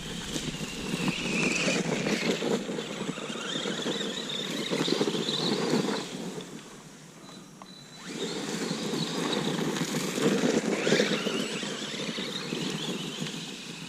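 An Arrma Granite BLX 4x4 RC truck's brushless motor whines, rising and falling in pitch as the truck speeds up and slows, over a rough rushing noise. It drops away for about two seconds in the middle and then picks up again.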